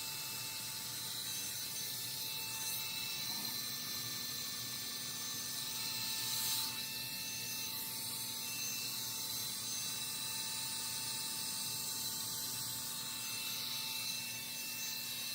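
Rotating hot-air blow dryer brush running steadily, a fan rush with a steady motor whine; its hum shifts a little about three and a half seconds in.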